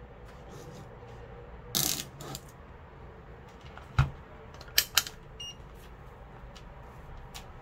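Hands handling small electronic test gear on a wooden desk: a short rattling clatter about two seconds in, a sharp knock about four seconds in, then two quick clicks and a very brief faint beep.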